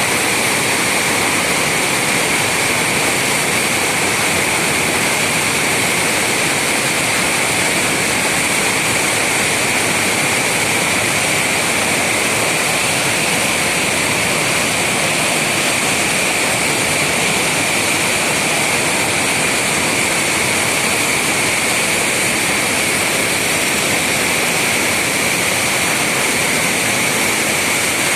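Heavy water flowing through a river dam: a loud, steady rush of water with no breaks.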